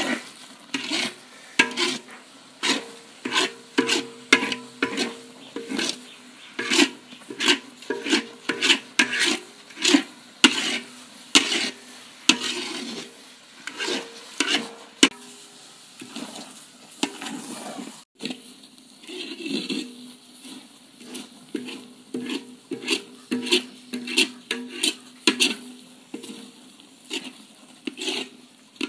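A metal spatula stirring and scraping thick, sticky kalu dodol around a large metal pot, in repeated strokes about two a second, each with a short scrape against the pot wall. The strokes break off briefly about two-thirds of the way through, then carry on.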